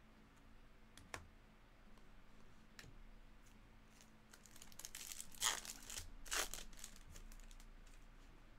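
Crinkling and rustling of plastic and card stock as trading cards are handled, with a single click about a second in and the loudest crinkles between about five and six and a half seconds in.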